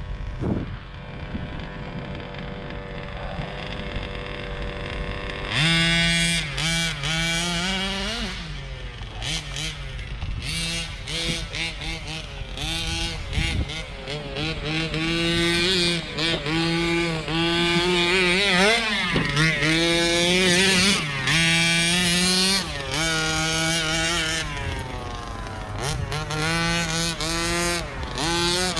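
Rovan 1/5 scale RC truck's small two-stroke gas engine, steady and quieter for the first five seconds or so, then louder and revving up and down again and again with short throttle-offs between bursts as the truck is driven.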